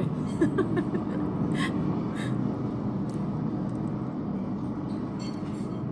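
Steady dining-room hum and murmur with a few sharp clinks of cutlery on dishes, about half a second in and again near one and a half and two seconds.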